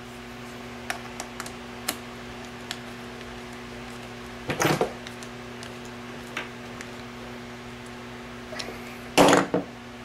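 Small metallic clicks and clinks of a nut driver working a bolt that holds a steel bar to a string-trimmer gear head, with louder knocks about halfway through and, loudest, near the end. A steady low electrical hum runs underneath.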